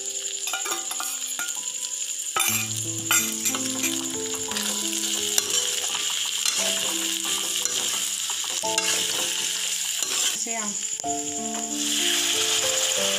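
Chicken and potato pieces sizzling as they fry in an iron wok, with a steel spoon stirring and clicking against the pan. Near the end, water is poured into the hot wok and the sizzle grows louder. A melodic background tune plays throughout.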